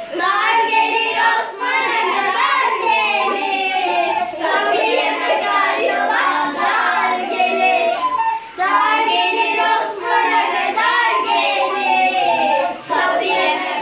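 Four young girls singing a song together, accompanied by a recorder, in phrases with short breaks between them.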